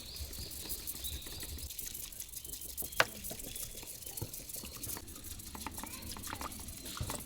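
Raindrops pattering and dripping in irregular scattered ticks, with one sharp click about three seconds in.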